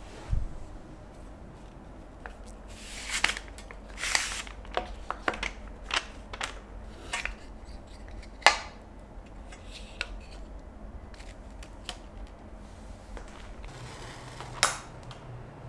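Handling of paper product boxes and a small wooden incense box: scattered light clicks, taps and short scrapes as the box is opened and the sticks are handled. Near the end, one short sharp scrape as a match is struck.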